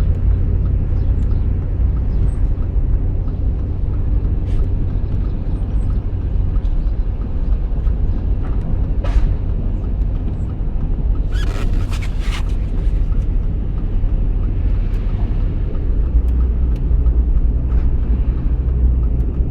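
Steady low rumble of a GMC Yukon Denali on the move, with a few short creaks: one about nine seconds in and a quick cluster a couple of seconds later. The creaks are the trim or body creak the owner is showing.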